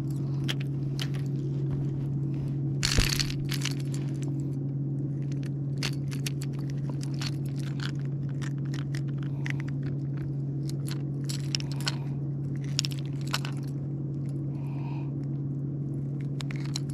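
A small fish being unhooked by hand: scattered clicks, rattles and scrapes of the lure and its treble hook against the fish, with a brief louder rustle about three seconds in, over a steady low hum.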